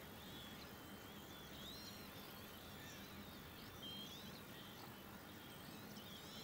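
Faint, high bird chirps and twitters, short and frequent, over a quiet steady background hiss.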